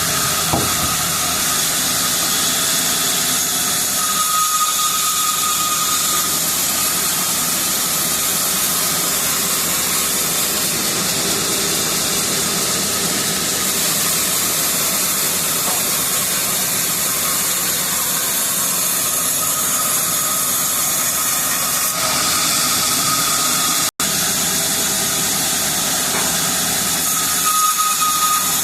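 Sawmill saw running through a teak log: a steady hissing whine with no pause, broken only by a momentary drop to silence near the end.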